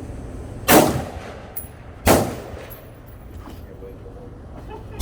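Two rifle shots on a firing line, about 1.4 seconds apart, each a sharp crack followed by a short echoing tail.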